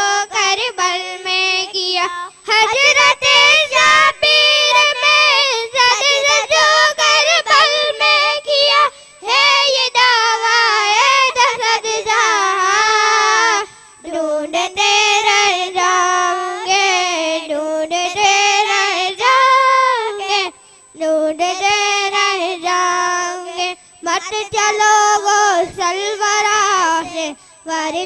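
A young girl singing a naat, an Islamic devotional song, solo without instruments into a microphone, in long ornamented phrases separated by brief breaths.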